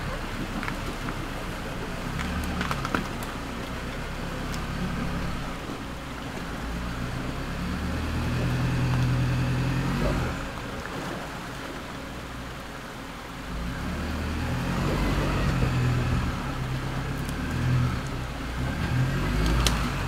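Isuzu NPS truck's diesel engine pulling a loaded caravan through a creek crossing. The revs rise and fall, surging twice and dropping back sharply about halfway through. A couple of sharp clicks come near the end.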